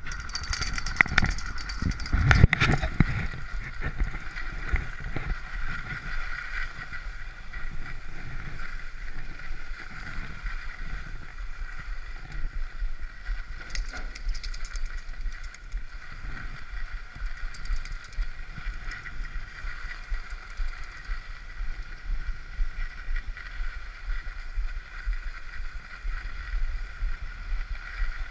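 Skis sliding steadily over groomed snow while the skier is towed uphill by a drag lift, with a low rumble of wind and movement on the camera's microphone. A few knocks and bumps in the first three seconds as the tow pole is taken.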